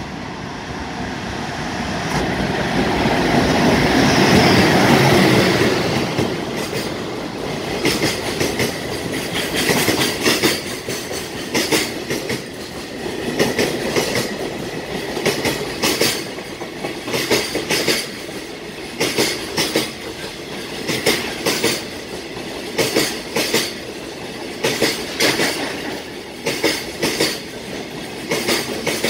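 EH200 electric freight locomotive passing at speed, loudest about five seconds in. Behind it, a long string of container wagons rolls by with the clickety-clack of wheelsets over rail joints, in repeated groups of clicks.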